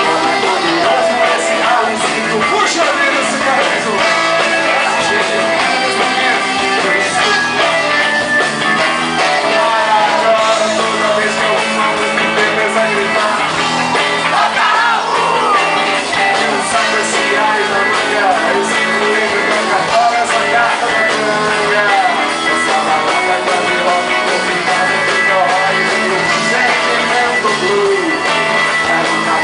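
Live band playing rock music with guitar and drums, with singing over it.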